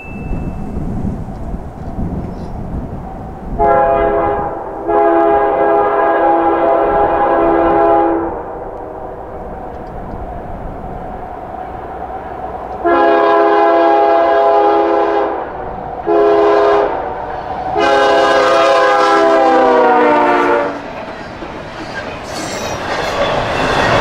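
Diesel freight locomotive's multi-chime air horn sounding five blasts over the rumble of the approaching train, ending in a long-long-short-long grade-crossing pattern; the last long blast drops in pitch as the locomotive passes. Near the end, the roar of double-stack container cars rolling by rises.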